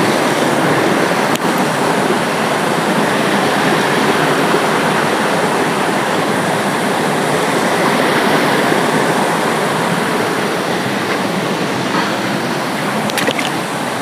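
Steady rush of water flowing over the rocks of a forest stream.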